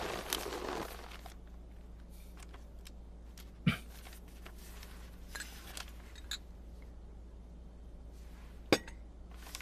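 Quiet room tone with a steady low hum, a soft rustle at the start, and two short sharp clicks, one about four seconds in and one near the end.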